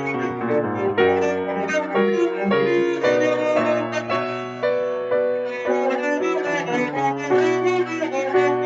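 Cello being bowed through a piece, with piano accompaniment, a quick run of notes, heard over a Zoom call.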